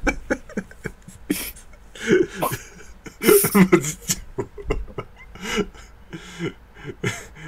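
Men's voices talking and chuckling, in short broken bursts.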